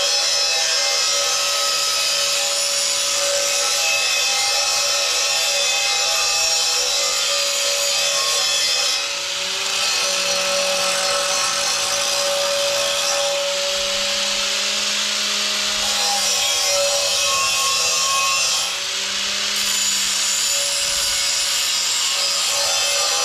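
Handheld angle grinder grinding on quarter-inch steel U-channel, a steady high whine over a coarse grinding hiss, with brief dips about nine and nineteen seconds in. It is grinding bare spots on the steel ready for welding.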